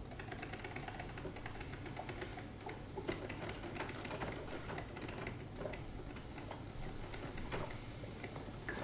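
Drip filter coffee machine running, a steady low hum with irregular ticks and crackles.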